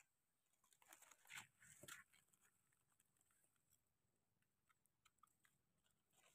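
Very faint crunching and scraping, loudest about one to two seconds in, then a few scattered small clicks: a small knife cutting and trimming the stem of a russula mushroom.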